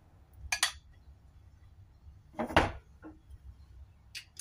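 Kitchen handling sounds as spoons and sauce containers are worked over a glass baking dish: a light clink about half a second in, then one louder, sharp knock a little past halfway, and a faint tick near the end.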